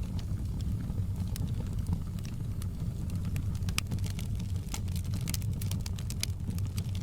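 Wood fire in a fireplace crackling: sharp, irregular pops and snaps over a steady low rumble of the burning fire. The pops come thickest about two-thirds of the way through.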